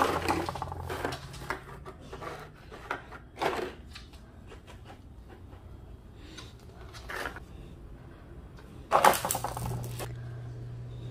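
English bulldog chewing and crushing empty plastic water bottles: crinkling and crackling plastic in irregular bursts, the loudest about nine seconds in. A steady low hum runs underneath.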